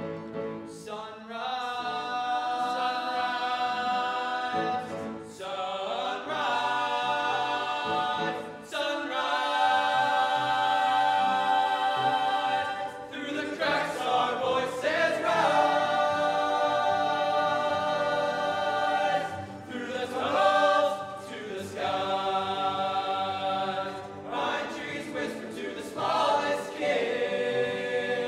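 Group of voices singing together in harmony, in sung phrases a few seconds long with long held notes: a stage musical's cast singing.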